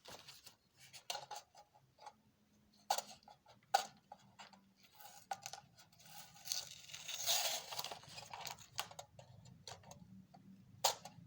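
Masking tape being peeled and crumpled off a painted model train tender, with scattered small clicks and taps of handling and a longer stretch of rustling tearing about seven seconds in.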